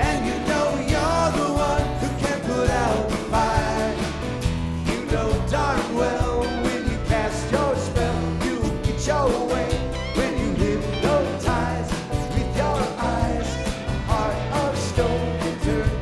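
A band playing a '70s-style rock song, with sung vocals over bass and drums keeping a steady beat.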